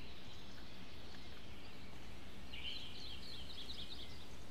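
Songbird chirping and twittering in a quick series of high notes from about halfway through, over a steady low background hum.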